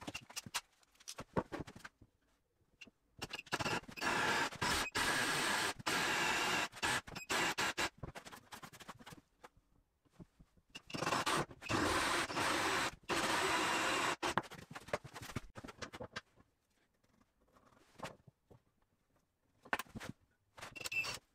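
Cordless drill boring hinge cup holes into a 20 mm engineered oak worktop: two steady runs of drilling a few seconds each, a few seconds apart, with clicks and knocks of handling in between.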